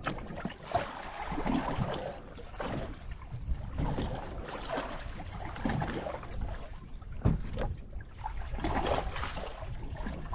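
Water slapping and washing against the hull of a small fishing boat in repeated swells over a steady low rumble, with a few sharp knocks.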